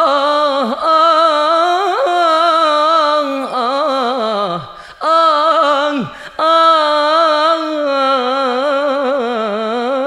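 A man singing unaccompanied in raï style, long melismatic held notes with a wide vibrato, breaking off briefly twice, about five and six seconds in, to draw breath.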